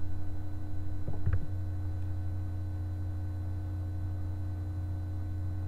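Steady low electrical hum on the recording, with a faint brief noise about a second in.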